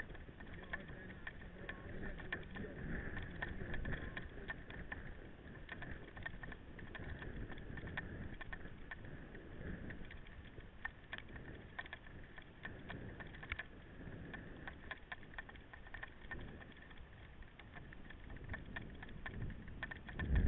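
Mountain bike on the move: a steady rush of tyre and wind noise with frequent small clicks and rattles.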